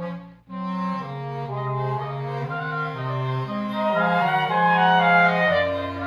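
Wind quintet playing held chords over a stepping low bass line, with a short break about half a second in and a swell in loudness toward the end.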